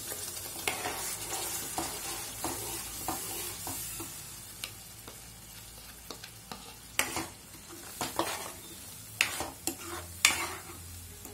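Onion, tomato and cashew paste sizzling in hot oil in a steel kadai as it is poured in and stirred with a steel ladle. The sizzle dies down, and from about seven seconds in the ladle scrapes and knocks against the pan several times.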